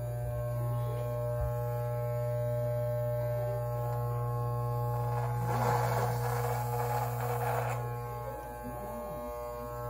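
Electric beard trimmer running with a steady buzzing hum. For about two seconds past the middle a louder hissing, crackling noise joins it as the blades cut through beard hair. The hum dips slightly near the end.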